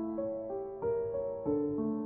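Gentle background piano music, its notes changing about every half second.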